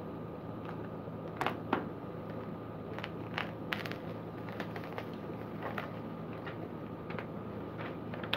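Packaging being handled and pulled open by hand: scattered crinkles and clicks, the loudest two about one and a half seconds in, over a steady background hum.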